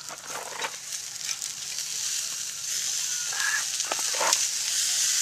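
Meat sizzling on a charcoal grill grate over hot coals: a steady high hiss that grows a little louder, with a few short clicks.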